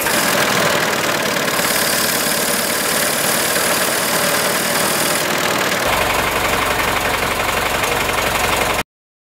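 AEC B-type bus's four-cylinder petrol engine running steadily on test after restoration, its first run in decades. The sound cuts off suddenly near the end.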